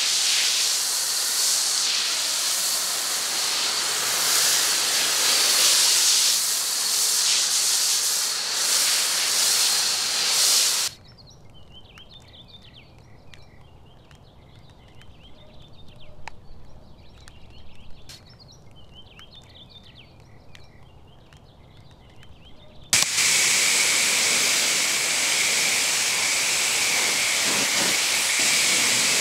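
Pressure washer spraying water onto the car, a loud steady hiss. About a third of the way in it cuts off abruptly to a much quieter stretch with a low hum and faint chirps, and the spray hiss returns just as abruptly near the end.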